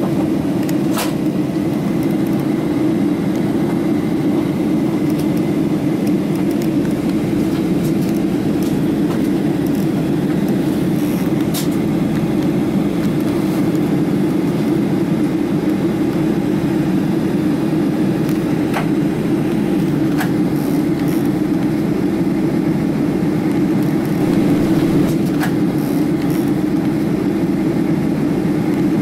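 Steady cabin drone of a jet airliner on its approach to land, heard from the rearmost cabin seats: engine and airflow noise, deep and even. A few faint clicks break through.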